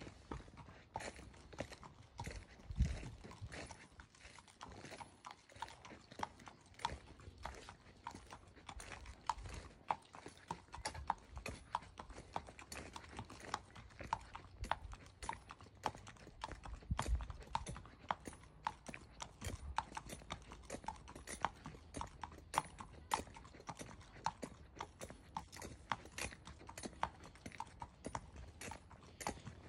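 Ridden horse's hooves clip-clopping on a concrete path in a steady run of hoofbeats, a few a second, with an occasional louder low thump.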